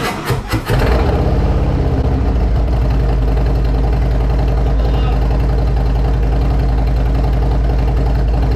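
Harley-Davidson Road Glide Special's Milwaukee-Eight V-twin starting through freshly fitted TAB Performance Zombie straight-through slip-on mufflers. A brief crank, it catches about a second in, then settles into a loud, steady, pulsing idle.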